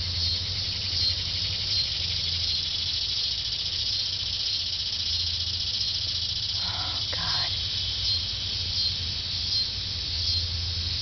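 Steady high-pitched chorus of insects with a fine pulsing texture, over a steady low hum, with a short faint sound about seven seconds in.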